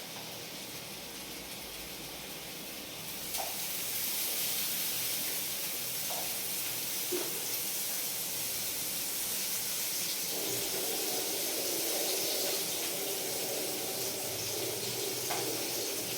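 Fish frying in hot oil: a steady sizzling hiss that gets louder about three seconds in.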